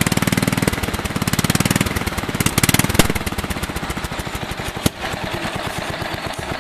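Riding lawn mower engine running, speeding up and dropping back in several short surges over the first three seconds as its throttle linkage is worked by hand at the engine, the throttle cable not being hooked up. It then settles to a steadier, quieter run, with a sharp click about five seconds in.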